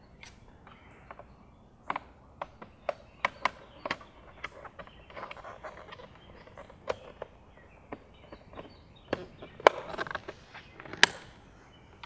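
Hard plastic clicks and knocks as a mirror cap is worked onto a VW Golf GTI Mk7 door-mirror housing, with two louder snaps near the end as it pops into place.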